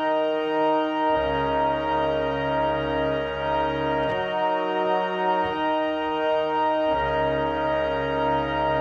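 Music: slow, held organ chords, the chord changing every few seconds, with no voice.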